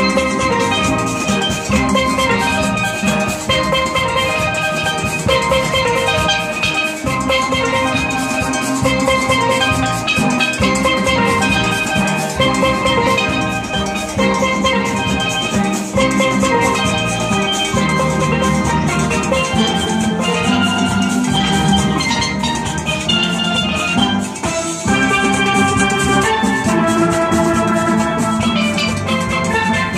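Steel band playing a tune together on many steel pans: a dense ensemble of bright, ringing struck notes over a steady beat.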